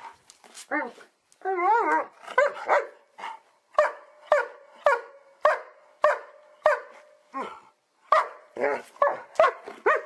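German Shepherd dog giving a couple of wavering, warbling whine-like calls, then a long run of short sharp barks at fairly even spacing, roughly three every two seconds.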